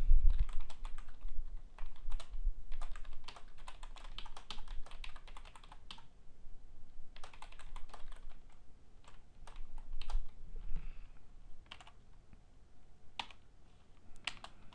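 Typing on a computer keyboard: quick runs of keystrokes that thin out to a few single taps over the last few seconds.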